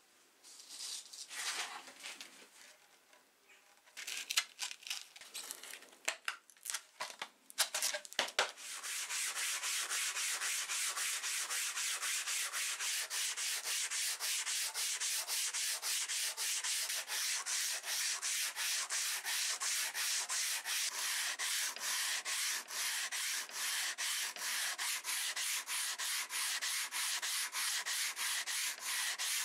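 Abrasive paper in a hand sanding block rubbed back and forth over a steel billhook blade in rapid, even strokes, taking off rust. Before the steady strokes begin, about the first eight seconds hold irregular handling knocks and scrapes.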